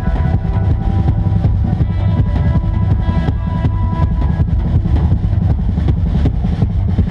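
Live post-rock band playing loud: frequent drum kit hits with a heavy bass drum over sustained pitched notes.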